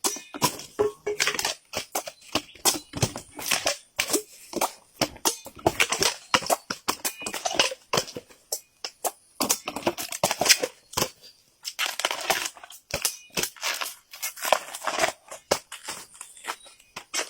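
Bamboo being cut, giving a rapid, irregular run of sharp cracks and snaps.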